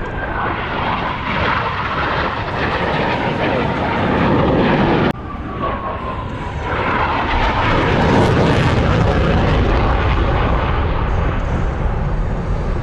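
Blue Angels F/A-18 Super Hornet jets roaring past in opposing horizontal rolls, with a falling engine whine as they pass. The roar breaks off abruptly about five seconds in, then builds again, louder.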